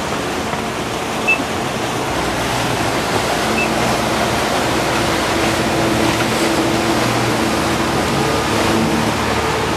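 Steady rush of wind and spray on board a cruiser running fast through chop, with the low drone of the motorboat engines underneath.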